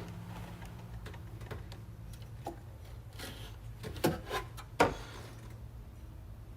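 Hand-checking a serpentine belt tensioner for wobble: a few scattered metal clicks and knocks, two sharper ones a little past the middle, over a steady low hum.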